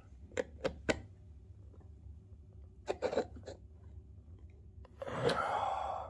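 Light clicks and taps of a plastic pressure-washer quick-release connector and metal fitting being handled and turned over on a wooden board: three quick clicks just under a second in, a few more around three seconds. About five seconds in, a person breathes out heavily for about a second.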